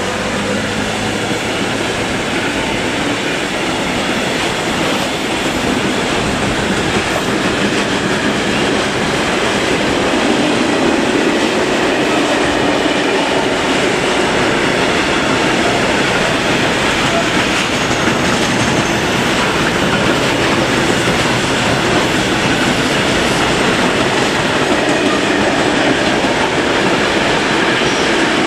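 Steel wheels of a long freight train's open-top wagons rolling past on the rails: a steady, unbroken rolling and rattling noise.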